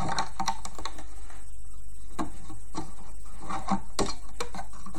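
Irregular light clicks and taps of fingers and a rubber band against the plastic pins of a rubber band loom, as a single band is stretched and wrapped around a pin.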